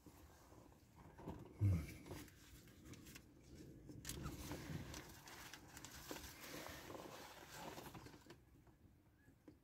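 Faint rustling and crinkling of a paper food wrapper being handled, with a low thump a little under two seconds in.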